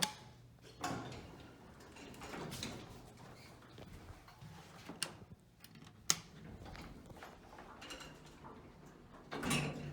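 Footsteps and handling knocks while walking, with a few sharp clicks spread out and a louder clunk near the end.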